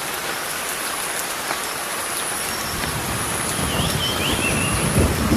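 Steady rain falling, with a short high bird chirp about three and a half seconds in and low thumps near the end.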